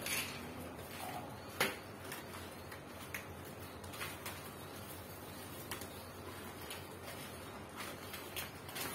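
Plastic wrapping crinkling and a cardboard box rustling as small parts are handled and unpacked, in short, scattered rustles and clicks; the sharpest comes about a second and a half in.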